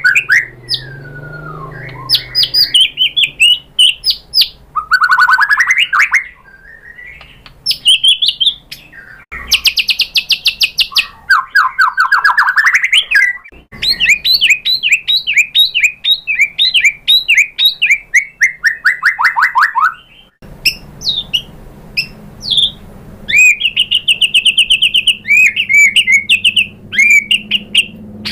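White-rumped shama singing a long, varied song: rapid trills, fast runs of repeated notes and rising and falling whistled sweeps, changing phrase every few seconds.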